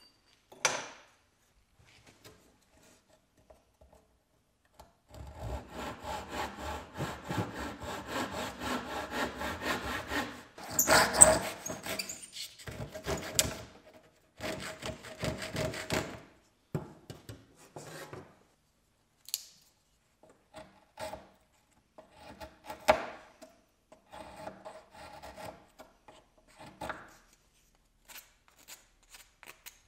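Backsaw cutting through a thin wooden board in quick back-and-forth strokes for about ten seconds, with brief pauses, as a wedge for an axe handle is cut out. This is followed by shorter, scattered scrapes of a knife shaving the wedge.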